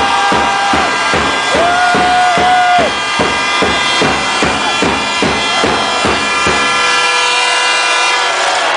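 Loud music with a steady drum beat, about two to three beats a second, over held tones; the beat stops about three-quarters of the way through.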